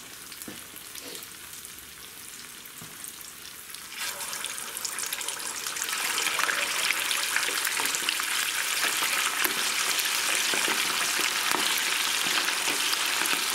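Hot frying oil hissing softly, then about four seconds in chicken wings go into it and the oil breaks into loud, crackling sizzling that builds over the next couple of seconds and holds: already-fried wings being double-fried.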